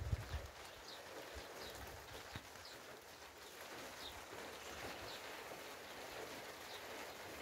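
Steady hiss of rain falling on the fields and vegetation, with a bird repeating a short, high call about once a second. A gust of wind buffets the microphone briefly at the start.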